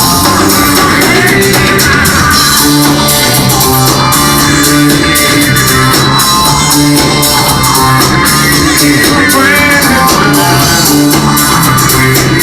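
Rock music, instrumental: electric guitars, bass and drum kit playing steadily with no singing.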